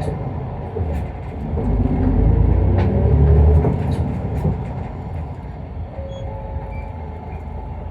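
Isuzu Erga Mio city bus's diesel engine heard from inside the cabin, pulling away and accelerating: the engine note rises to its loudest about three and a half seconds in, then eases off into steadier running with road rumble.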